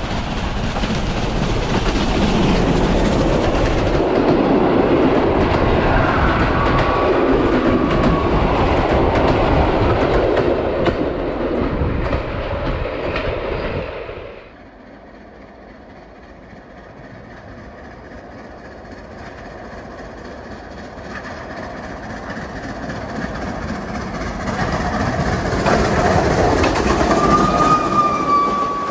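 Steam locomotive and its train running past close by, wheels clattering over the rail joints. The sound cuts off suddenly about halfway, then a second steam-hauled train approaches and passes, getting louder towards the end.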